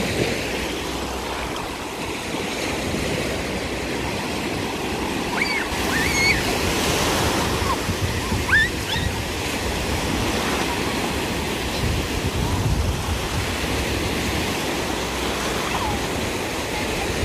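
Shallow surf breaking and washing up a sandy beach in a steady rush of water, with a low rumble of wind on the microphone.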